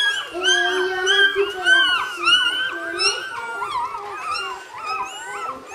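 A litter of one-day-old Czechoslovakian wolfdog puppies squealing and whimpering all at once: a dense chorus of short, high, rising-and-falling cries overlapping one another, with a lower drawn-out whine through the first half.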